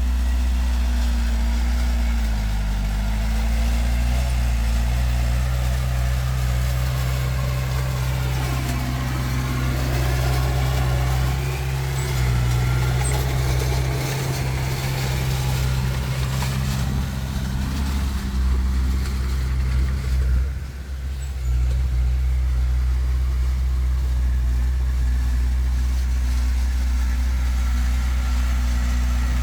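Heavy diesel engine running steadily, with a deep steady drone. Partway through, the engine note shifts and a higher sweeping tone comes and goes. There is a brief dip about two-thirds of the way in before the steady running resumes.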